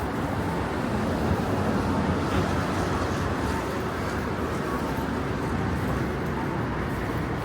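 Busy city street ambience: a steady wash of road traffic and street noise.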